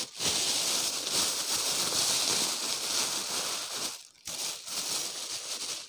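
A thin plastic bag crinkling as it is handled, gathered and smoothed by hand. The rustle runs on steadily, with a short break about four seconds in.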